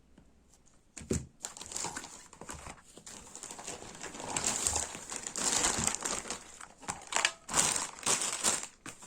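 Packaging crinkling and rustling as a parcel is unwrapped by hand, with some tearing. The rustling grows busier about halfway through, with several loud crackles near the end.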